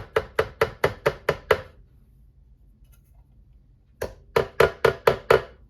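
Two runs of quick knocks, about five a second, with a pause between: the coffee bean grinder being tapped to shake the fine grounds loose.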